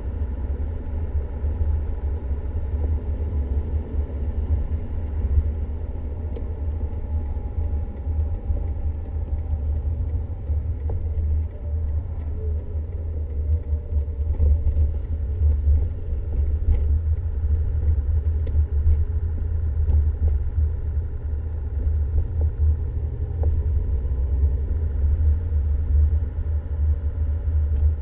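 Car driving at road speed: a steady low rumble of road and engine noise picked up by a car-mounted camera, with a faint high steady whine above it.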